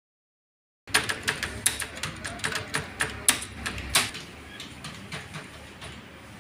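Computer keyboard keys clicking in fast, irregular typing, starting about a second in and thinning out after about four seconds.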